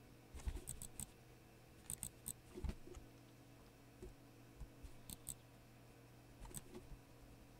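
Faint, irregular small clicks and ticks over a low steady hum. A quick run of several comes in the first second, a few more around two seconds in with a soft thump, then a pair and a single click later.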